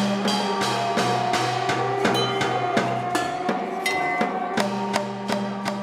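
Robotic percussion made from found objects: mechanical beaters strike drum heads and metal bowls about three times a second over a steady sustained low tone.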